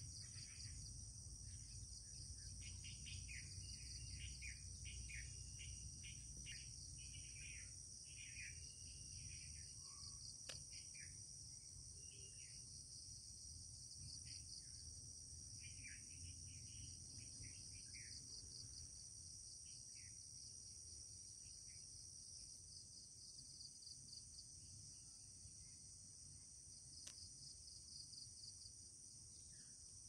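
Faint, steady high-pitched drone of an insect chorus, with birds chirping in short phrases through the first twenty seconds or so and a low rumble underneath.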